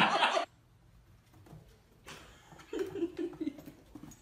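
A person laughing loudly, cut off about half a second in. Then faint scuffs and taps, and about three seconds in a short, low, wavering puppy whimper.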